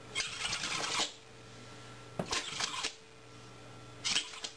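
Small terrier-type dog scratching rapidly at a carpet with its paws, in three short bursts, each under a second.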